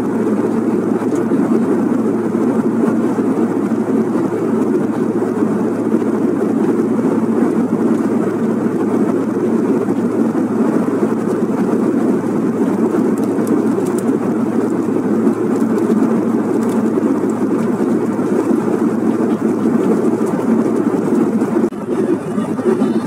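Steady cabin noise of a Bombardier CRJ 1000 jet airliner in cruise flight: an even, deep roar of engines and airflow heard inside the cabin.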